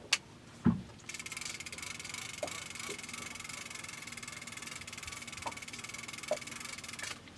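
Fishing reel's ratchet clicker buzzing as line runs off the spool while a baited line is lowered to the seabed: a fast, even stream of clicks that starts about a second in, stops abruptly near the end and starts again. Just before it come a sharp click and a louder dull thump.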